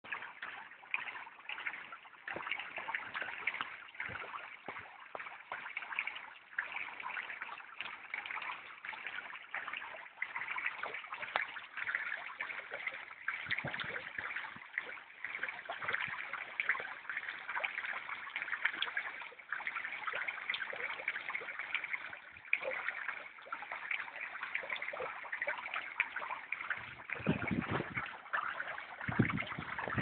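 Small garden pond fountain spraying and splashing back onto the pond surface: a steady trickling, pattering water sound. A few soft low thumps near the end.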